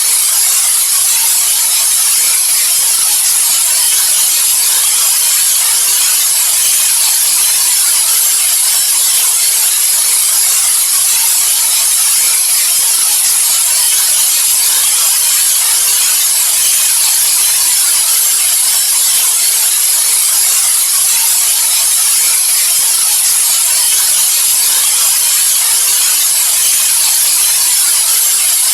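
Steady white noise: a loud, even hiss, brightest in the high treble, that does not change.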